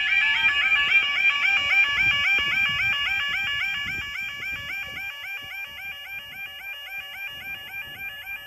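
UK level crossing yodel alarm sounding, a rapid repeating warble. It drops in volume about four seconds in and carries on quieter.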